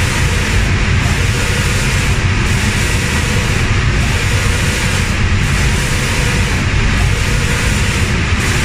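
Automatic reciprocating spray-painting machine running: a steady hiss of air spray guns over a low machine rumble. The high part of the hiss briefly drops out about every one and a half seconds as the gun carriage sweeps.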